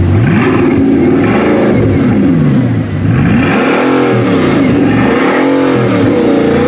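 Bugatti Chiron's quad-turbo W16 engine being revved repeatedly while parked, the pitch climbing and falling again several times in a row.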